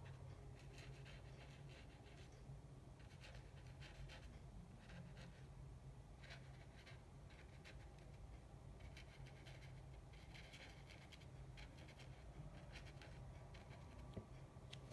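Faint scratching of a thin paintbrush dabbing watercolour paint onto paper, in clusters of short strokes with brief pauses, over a low steady hum.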